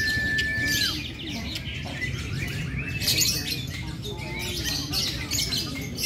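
Caged lovebirds chattering and trilling in fast, dense high chirps, the long trilling song that lovebird contests judge. A single steady high whistle tone ends about a second in.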